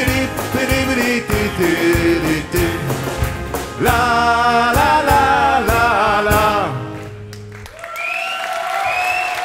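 Live rock band with electric guitars, drums and keyboard, with a lead singer, playing the end of a song: a rhythmic passage, then a long final chord with held, wavering sung notes about four seconds in, cut off just before seven seconds. After a short lull, audience applause starts near the end.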